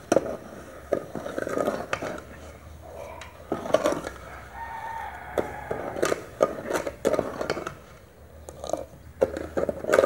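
A metal ladle stirring a pot of orange pulp and sugar, clinking and scraping sharply against the sides of the aluminium pot, with pitched calls in the background.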